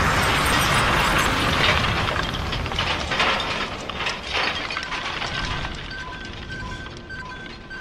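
The noise of a big explosion dies away with debris crackling. From about five seconds in, a regular two-tone electronic beeping starts, about two a second: Ultraman Orb's Color Timer warning, the sign that his energy is running low.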